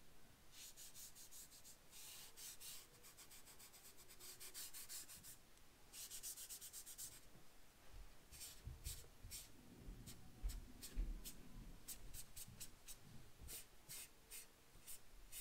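Chalk pastel being rubbed and blended into paper: faint, scratchy back-and-forth strokes, rapid and continuous at first, then breaking into separate short strokes with a few soft bumps from about eight seconds in.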